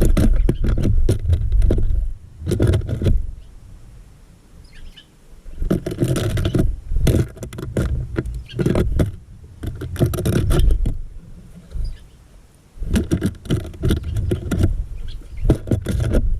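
Small birds landing, hopping and pecking at seed in a feeder right against the microphone: three bursts of close scrabbling, tapping and knocks, with faint chirps in the quieter gaps.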